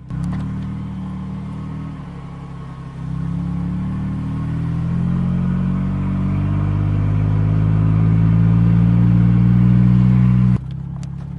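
Car engine running as the car pulls away and accelerates, its low drone stepping up about three seconds in and growing louder and slightly higher in pitch, then cutting off suddenly near the end.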